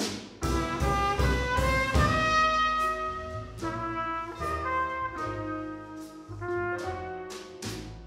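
Small jazz combo playing: a trumpet carries the melody in long held notes over piano, plucked upright bass and drums, with cymbal strokes throughout.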